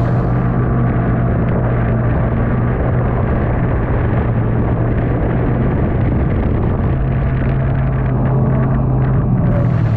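Yamaha snowmobile engine running at a steady speed under way, a constant drone with a rushing noise of wind and snow over it.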